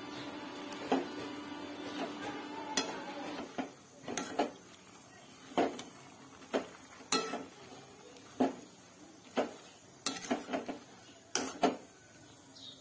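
Metal spoon clinking and scraping against a steel pot as spinach leaves are turned while they boil, with sharp, irregular knocks about once a second. A steady hum underneath fades out after the first three or four seconds.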